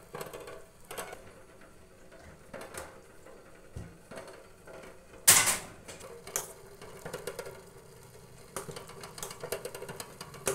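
Kitchen scissors snipping green chillies over a stainless-steel pot, a few spaced clicks, then a steel spoon clinking and scraping against the pot while stirring noodles, in a quick run of clicks near the end. One sharp, loud clatter comes about five seconds in.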